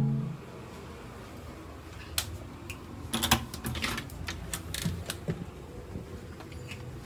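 A run of sharp clicks and knocks as a door's metal lever handle is pressed down and the latch and door are worked open, loudest about three seconds in.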